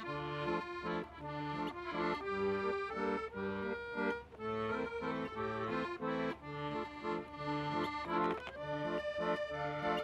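Piano accordion playing a tune: a melody in the right hand over a steady alternating bass-note and chord accompaniment.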